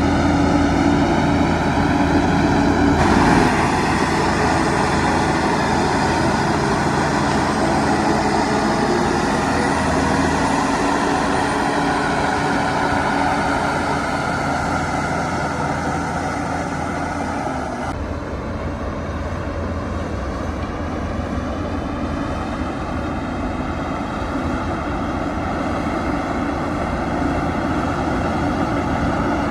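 Heavy diesel engines of earthmoving machines, a Shantui crawler bulldozer and dump trucks, running steadily at work. The drone changes character abruptly twice, about three seconds in and again past the halfway point.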